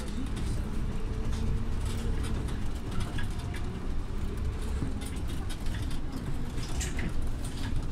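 Scania OmniLink city bus under way, heard from inside: a steady low diesel rumble with a drone that rises and falls, and frequent light rattles and clicks.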